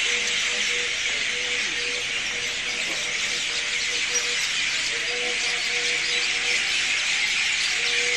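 A dense, continuous chorus of many birds chirping and chattering together, with a faint steady tone underneath that drops out now and then.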